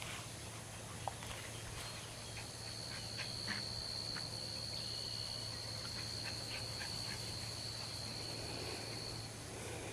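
A steady, high-pitched insect drone that runs for about seven seconds and stops near the end, with faint scattered short chirps and ticks around it.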